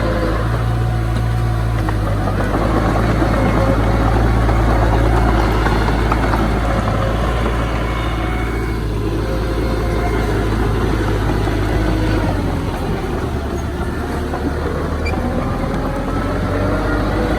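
Engine of heavy earthmoving machinery running steadily, its low note shifting about twelve seconds in.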